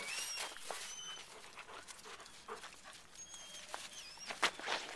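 Dogs whining faintly: several short, high-pitched whines, some gliding in pitch, with soft scuffling of paws in snow and a couple of louder scuffs near the end.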